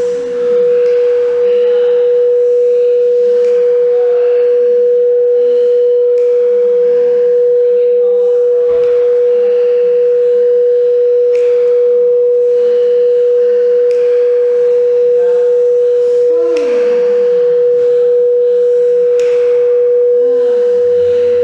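A singing bowl sounding one steady, pure, sustained tone, with faint softer sounds beneath it.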